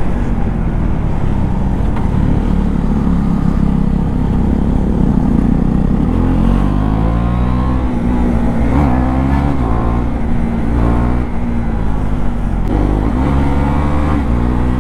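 KTM Duke 390's single-cylinder engine running through an aftermarket Akrapovič exhaust, heard from the rider's seat while riding at speed. Its pitch rises and falls as the throttle opens and closes, with a short drop about eleven seconds in.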